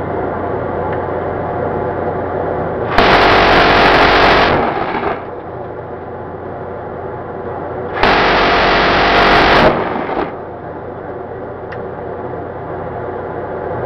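MK44 7.62 mm six-barrel minigun firing two bursts, each about one and a half seconds long and about five seconds apart, each an unbroken stream of shots too fast to count. Steady background noise with a low hum is heard between the bursts.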